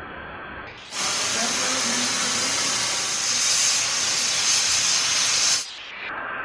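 Loud steady hiss of welding, starting about a second in and cutting off sharply about four and a half seconds later.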